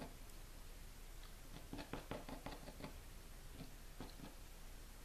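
Faint light taps of a small plastic ink squeeze bottle against a plastic cutting board as ink is applied: a quick run of about eight taps a little under two seconds in, then a few more.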